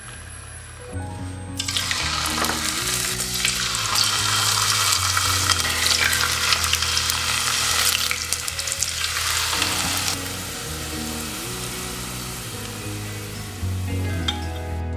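Thin double-layered potato slices frying in hot oil, sizzling and crackling. The sizzle starts suddenly about a second and a half in, is loudest for the next several seconds, then settles lower before stopping just before the end. Soft background music plays under it.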